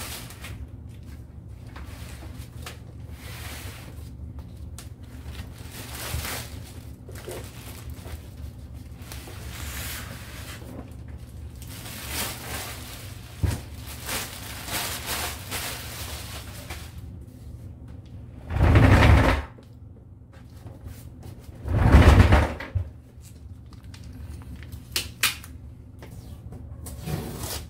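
Unpacking noises from the plastic wrap and tape on a boxed 3D printer being handled: soft rustling over a steady low hum, with two loud rips or scrapes of about a second each, some three seconds apart, two-thirds of the way in.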